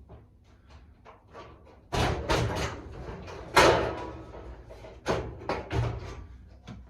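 Clatter and knocks of the tumble dryer's metal drum and cabinet being handled during reassembly: light clicks at first, then a run of loud bangs about two seconds in, the loudest a little later, and a few more near the end.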